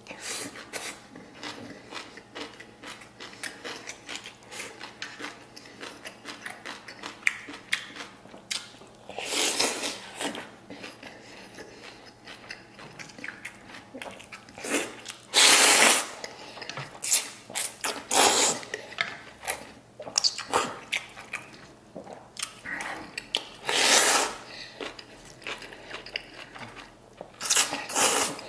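A person eating beef noodles: steady wet chewing with many small clicks and smacks, broken by about five loud slurps of noodles and broth. The longest slurp lasts about a second.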